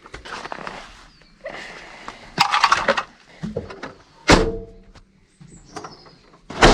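Rustling and clattering handling noise with two heavy thumps, one about four seconds in and a louder one near the end.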